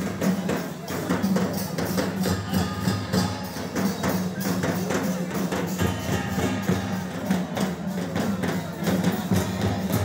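Festival procession drumming: barrel drums beat a fast rhythm with other percussion, over crowd noise.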